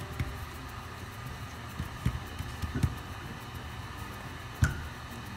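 A few soft knocks and taps of a clay slab being pressed and tools handled on a work board, the loudest about four and a half seconds in, over a steady low hum.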